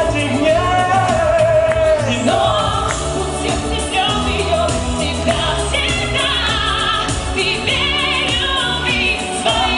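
Live pop song: a singer into a handheld microphone over loud musical accompaniment with a steady bass line, the melody sung with vibrato.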